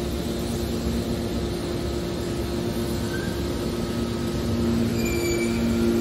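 Hydraulic metal baler's power unit running, a steady mechanical hum with two held low tones. A faint high whine joins about five seconds in.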